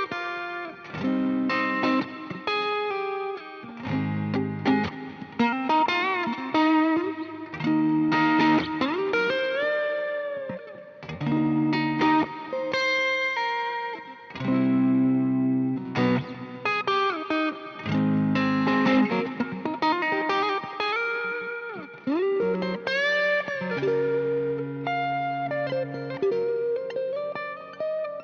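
Stratocaster electric guitar played through an effects patch. Strummed chords alternate with single-note lines and string bends, and the phrase ends on a held note that rings out.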